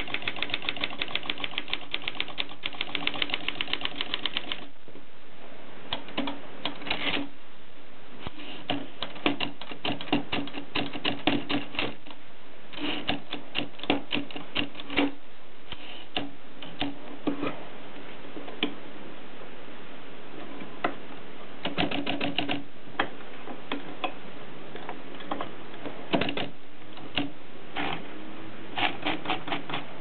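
Antique Optima Plana black Bakelite typewriter being typed on. A fast, even run of key strikes comes first, then bursts of keystrokes broken by short pauses.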